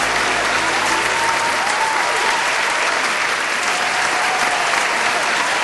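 Audience applauding steadily as a sung bolero ends.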